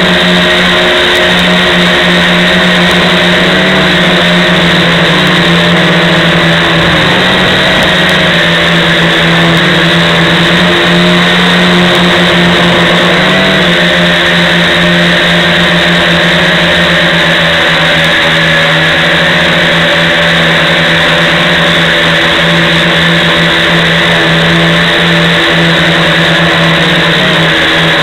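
Multirotor drone's electric motors and propellers droning steadily, heard from a camera mounted on the craft itself. The pitch wavers slightly a few times as the throttle changes.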